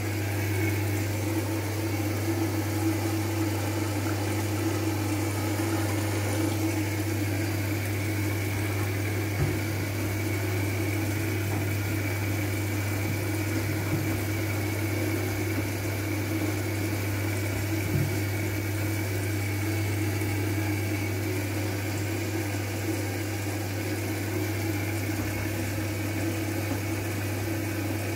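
Front-loading washing machine running its wash cycle: a steady motor hum as the drum turns, with laundry tumbling through water and a few brief knocks.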